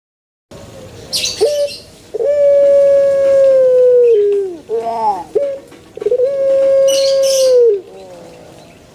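Puter pelung dove cooing: two long, steady coos of about two seconds each, each ending in a falling note, with short coos between them. Brief high-pitched noise comes near the start and again near the end.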